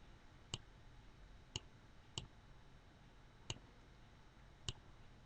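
Five single computer mouse clicks, spaced roughly a second apart, over quiet room tone.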